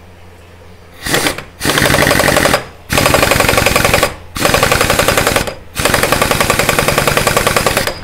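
Air impact wrench hammering the clutch hub nut of a small motorcycle engine tight, in about five bursts of rapid blows with short pauses between, starting about a second in.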